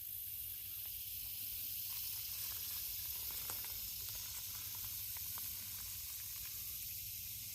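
Steady high-pitched hiss of a late-summer insect chorus, with a faint low rumble underneath.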